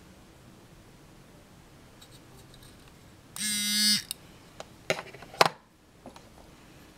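Sharpstone grinder's vibrating piece buzzing with a steady, even pitch for about half a second, a little past the middle. It is followed by a quick run of sharp clicks and clinks.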